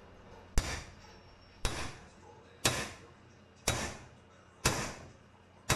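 Claw hammer striking metal on a Jeep axle shaft's U-joint yoke, six blows about a second apart, each ringing briefly: beating the old U-joint out of the yoke.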